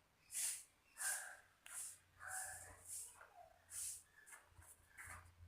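Small screwdriver driving screws into the plastic speaker housing: a faint squeak and scrape with each turn, repeating about every two thirds of a second.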